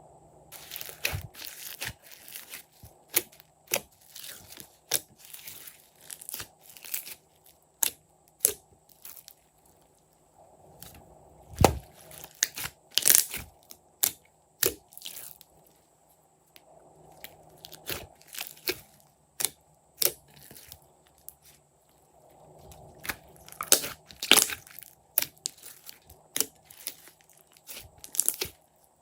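Close-up ASMR sounds of slime being handled: irregular sharp crackles, pops and crunches come in clusters, loudest around halfway and again near the end. A faint steady hum runs underneath.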